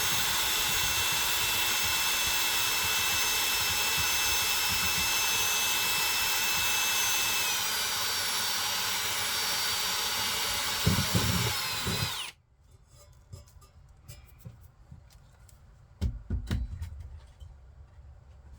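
Power drill running steadily with a high whine that dips slightly in pitch partway through, then cutting off abruptly about twelve seconds in. A few light clicks and a short burst of knocking follow near the end.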